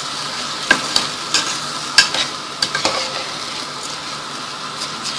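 Washed white rice sizzling in hot ghee in a pot as it is stirred to coat the grains, with a spoon clicking against the pot now and then.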